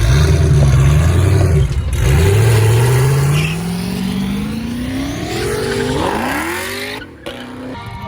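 Car engine running with a low steady note, then accelerating, its pitch rising steadily for about four seconds, with a second short rise before it cuts off abruptly near the end.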